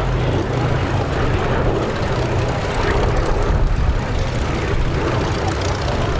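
Boeing B-17G Flying Fortress flying past, its four Wright R-1820 Cyclone nine-cylinder radial engines and propellers running with a steady, loud, low throb.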